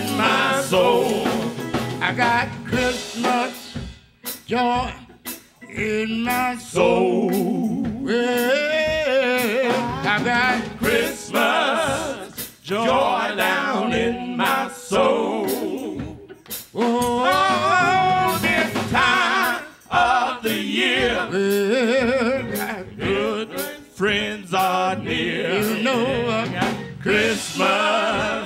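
A group of men singing a gospel song with wavering, sustained notes, accompanied by keyboard and sharp percussive hits.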